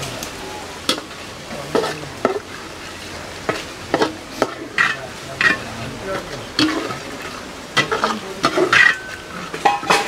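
A metal ladle scraping and clinking irregularly against a metal pot as it stirs thick beef masala. Underneath is a steady sizzle as the masala cooks down toward dry.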